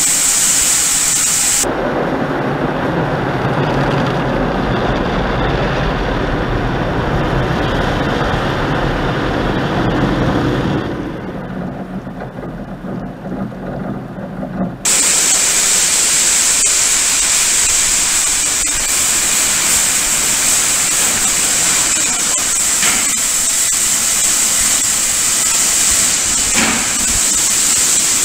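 Automatic car wash running: a steady hiss of spraying water. From about two seconds in until about halfway through, the sound turns muffled and rumbling, water and rotating brushes drumming on the car as heard from inside it. Then the bright hiss returns abruptly.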